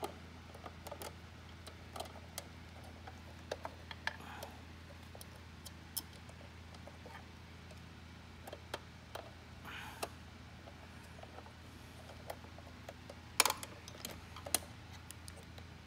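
Small scattered clicks and taps of a Phillips screwdriver working a screw into a plastic model locomotive body, with the shell being handled. A couple of sharper clacks near the end as the locomotive is shifted in the hands.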